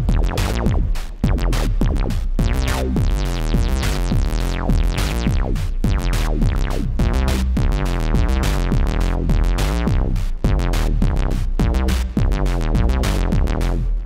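Moog Mother-32 analog synthesizer playing a fast, funky bass sequence through its filter, with the resonance turned up so that the notes carry a downward resonance sweep as an external Quadrax envelope closes the cutoff.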